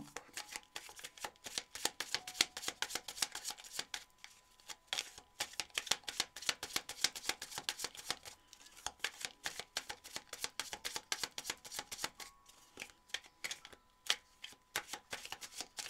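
A deck of tarot cards being shuffled by hand: a quick, dense patter of cards flicking against each other, with a few brief pauses.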